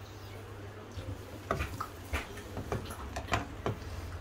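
Steel ladle clinking and knocking against a steel kadhai as milk is stirred while it reduces, several light knocks over the last two or three seconds above a low steady hum.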